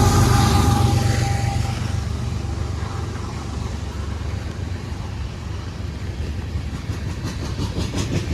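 Train passing the crossing: a loud low diesel rumble with a sounded horn that fades out about two seconds in, leaving a quieter steady rolling noise, with a few faint clicks near the end.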